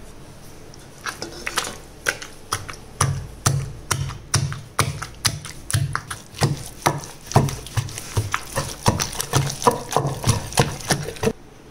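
Wooden pestle pounding wet peanut-tomato-onion chutney in a black stone mortar: dull, squelchy thuds about two a second, sparse at first, then steady after a couple of seconds.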